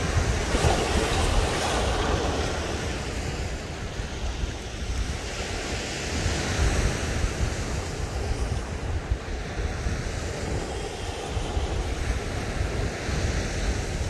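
Ocean surf breaking and washing up the beach, a steady wash that swells a little in the first couple of seconds, with wind buffeting the microphone.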